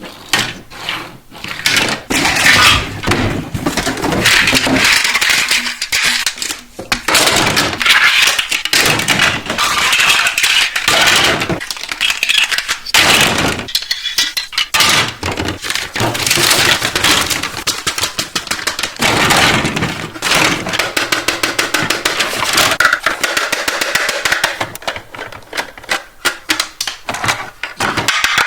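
Plastic and cardboard toy packaging being unboxed and handled: crinkling, rustling and clicking of plastic, with a quick run of clicks near the end.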